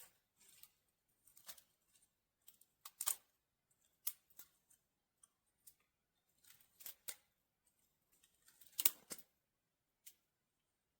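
Quiet, irregular sharp snips and snaps of small woody branches being cut or broken, with louder ones about three, four and nine seconds in.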